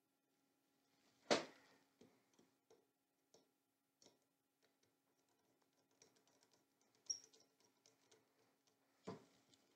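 Quiet hand work on small parts: scattered faint clicks and scrapes, with a sharp knock about a second in and another near the end, over a faint steady hum.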